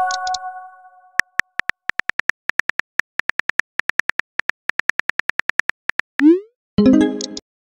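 Texting-app sound effects: a short electronic chime fades at the start, then rapid keyboard typing clicks follow at about five a second. About six seconds in, a rising swoosh marks a message being sent, followed by a brief burst of several electronic tones.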